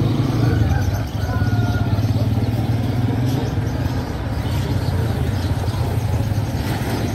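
Busy street traffic: a small vehicle engine running close by, steady and low, over the general noise of the street, with faint voices.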